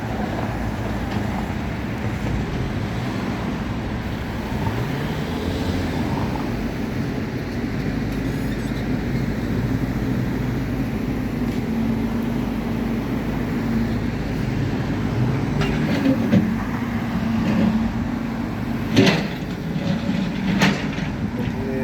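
A water tanker truck's engine running close by amid road traffic, its pitch rising and falling, with a few sharp knocks near the end.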